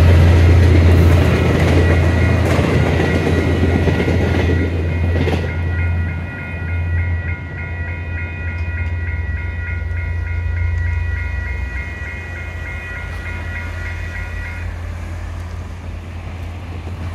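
The last VIA Rail LRC passenger cars roll over a level crossing, their wheels clacking over the rail joints and fading out about five seconds in. A level-crossing bell keeps ringing with quick regular strokes and stops about fifteen seconds in, all over a steady low rumble.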